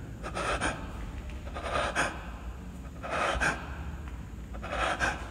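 A man breathing heavily close to the phone microphone: four short rushes of breath about a second and a half apart.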